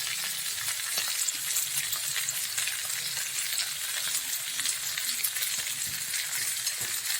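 Tilapia basted with sweet soy sauce sizzling and crackling steadily in a hot non-stick Teflon pan as it grills until the coating dries.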